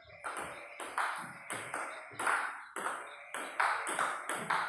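Table tennis rally: the celluloid/plastic ball clicking in quick alternation off the players' bats and the table, about three sharp clicks a second.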